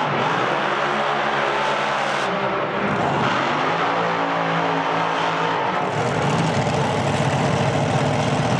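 Dragster engines at full throttle during burnouts: two pulls where the engine note rises, holds and drops back, then from about six seconds a second dragster's burnout takes over.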